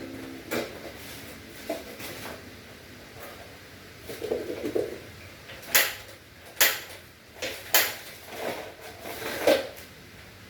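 Household objects being handled and set down: a series of sharp knocks and clatters, several seconds apart, with softer scraping in between.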